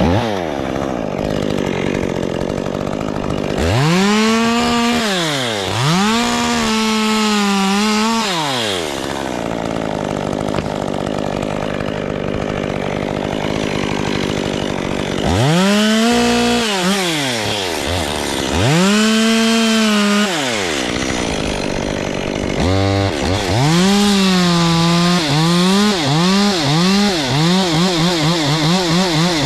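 Two-stroke chainsaw revved up in several cutting spells about four, sixteen and nineteen seconds in, idling between them. Near the end it runs in a string of quick throttle blips.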